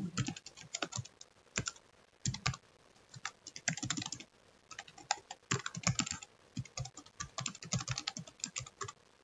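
Typing on a computer keyboard: quick runs of keystrokes in bursts, with short pauses between them.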